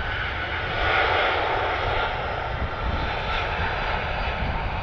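ABX Air Boeing 767 freighter's twin jet engines running as it rolls along the runway after landing: a steady jet rumble and hiss with a faint whine that slowly falls in pitch.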